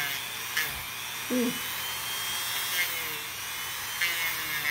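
Handheld electric rotary tool whining as its bit grinds down a toenail; the pitch sags and recovers several times as the bit is pressed to the nail, with a few sharp clicks.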